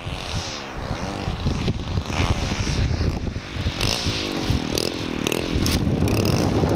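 Small DLE petrol engine of a large-scale RC warbird model running at low throttle on its landing approach, its pitch sliding down and back up several times as it passes, with wind buffeting the microphone.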